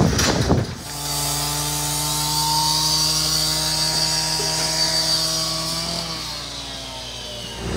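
Takeuchi mini excavator running at steady revs while digging through roots and soil, its engine and hydraulics giving a steady drone that dips slightly in pitch and eases off over the last couple of seconds. A few short knocks come in the first second.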